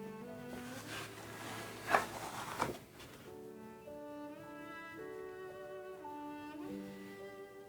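Background music of slow, held string notes. Two short knocks sound about two seconds in.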